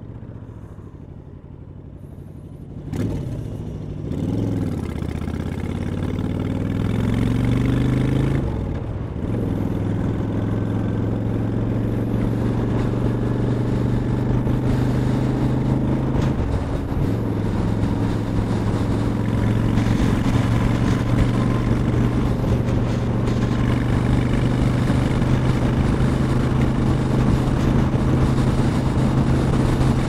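Honda Shadow 750 Aero's V-twin engine running low and steady, then pulling away about three seconds in. Its note climbs, drops at a gear change about eight seconds in, climbs again to a second shift around sixteen seconds, then settles into a steady cruise.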